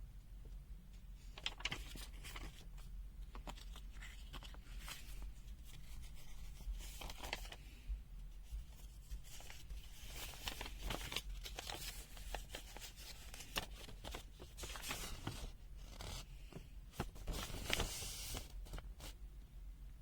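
Irregular rustling and scraping with many sharp clicks: objects being handled on a table.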